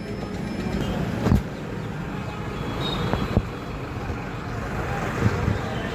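A road vehicle running: a steady rumble with a few sharp knocks.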